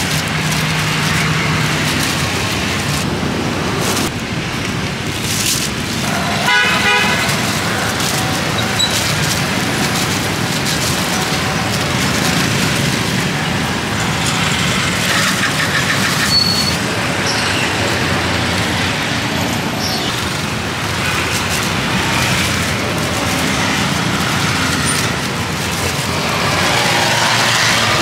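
Steady street traffic from passing road vehicles, with a short vehicle horn toot about six and a half seconds in.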